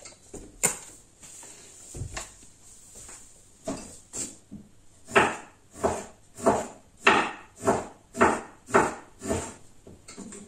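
Kitchen utensil work at the stove: a sharp knock and a few scattered knocks, then from about five seconds in a run of about eight even strokes, roughly two a second.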